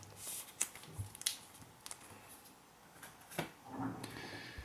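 Faint rustling with a few light taps and clicks as a trading card in a plastic card sleeve is handled.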